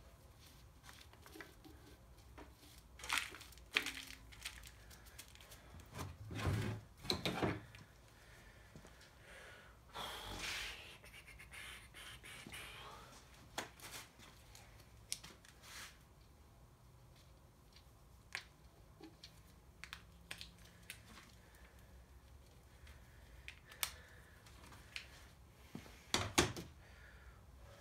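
Hand tools working on a diesel engine's front cover: scattered clinks and knocks of metal with a few short scraping stretches, the longest about ten seconds in.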